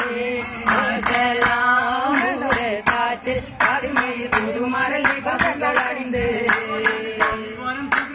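Vattappattu: a group of boys singing a Mappila song in chorus, keeping time with sharp, regular hand claps about two to three a second.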